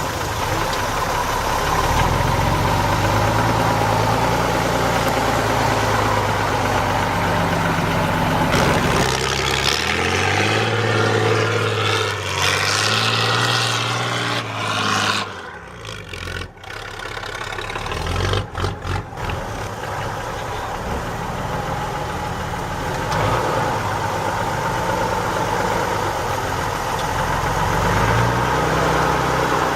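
Mercedes Unimog's diesel engine working in mud, its note rising and falling as it is revved under load. About halfway through it drops away briefly, there are a few quick thumps, and then it settles back to a steady run.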